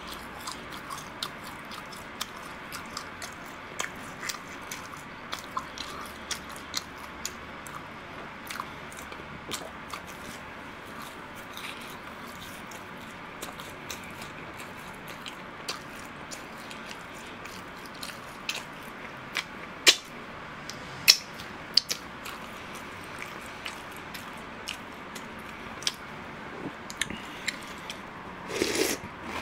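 Close-miked chewing of a chewy glutinous-rice twisted doughnut, with many small wet mouth clicks and two sharper clicks a little past the middle. Near the end, a short louder noise as a spoonful of chocolate cereal in milk is taken.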